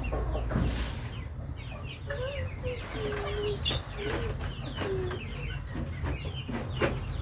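A flock of domestic chickens clucking and chirping, with many short high calls over a few longer, lower calls, and sharp clicks scattered throughout.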